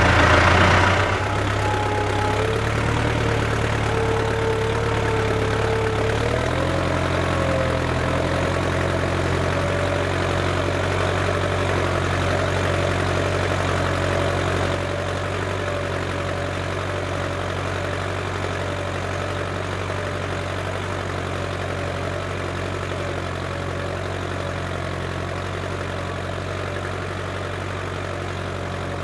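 Case International 885XL tractor's diesel engine running steadily, with a thin whine over the low engine note that rises slightly in pitch about six seconds in.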